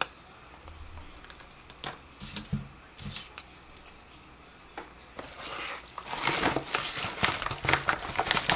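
Packaging rustling and crinkling: a few light rustles and clicks, then from about five seconds in, dense, louder crinkling of a padded mailer envelope being rummaged through by hand.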